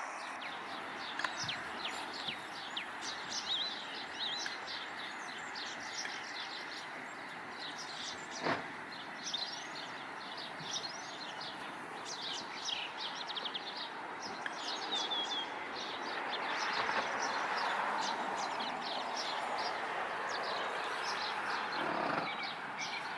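Many small birds chirping in quick, high, short notes over a steady outdoor rush that grows louder in the second half. A single sharp click comes about eight seconds in.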